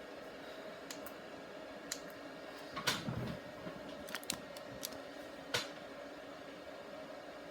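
Steady hum of a running desktop PC with a few level tones in it, broken by scattered sharp clicks and knocks from handling, the loudest about three seconds in. The Windows 98 PC is being powered up for a test after its southbridge chipset was replaced, and it still does not work.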